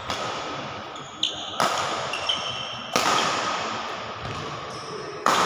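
Badminton rackets striking the shuttlecock in a fast doubles rally: a sharp hit every second or so, each one ringing on in a large, echoing hall. Shoes squeak briefly on the court between the hits.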